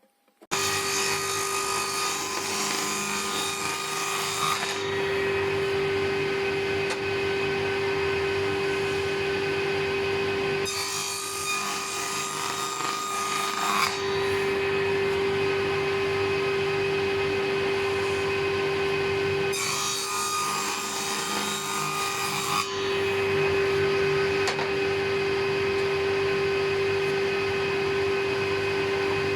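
A woodworking power tool running with a steady hum, cutting or abrading wood. The sound sets in abruptly just after the start. In stretches of a few seconds at a time it turns harsher and hissier, as the tool bites into the workpiece.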